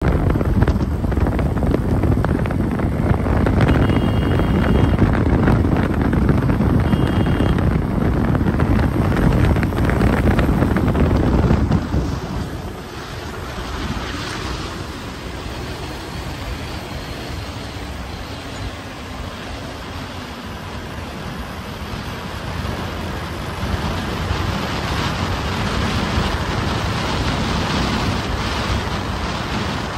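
Wind buffeting the microphone over motorcycle road noise while riding, with two short high beeps at about four and seven seconds. About twelve seconds in it cuts to quieter, steady road and traffic noise that grows slowly louder toward the end.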